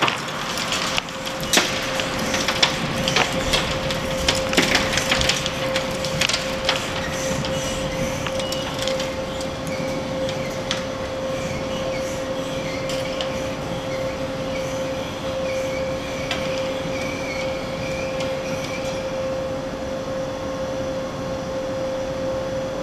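Crackling and ticking of crushed concrete and loose fragments settling in a reinforced-concrete column's plastic hinge after shake-table earthquake loading, thick at first and thinning out after six or seven seconds, over a steady hum from lab equipment.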